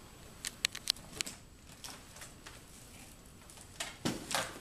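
Several sharp light clicks and taps in the first second or so, then a louder rustling scrape about four seconds in as a bag is grabbed and lifted off a hardwood floor.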